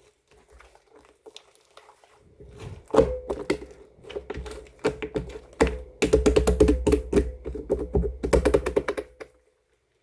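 Slime being squeezed and pressed by hand, giving crisp clicking and popping sounds. The clicks are scattered at first, come in a dense rapid run in the second half, then stop shortly before the end.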